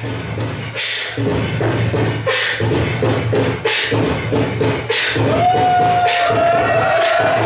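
Hip-hop beat over the club sound system: a steady bass with a sharp snare hit about every 1.3 seconds. A long held high note comes in about five seconds in and sags slightly in pitch.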